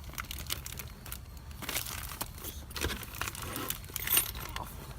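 Bag of small metal kit parts and hardware jingling and clicking as it is handled, in irregular quick clinks.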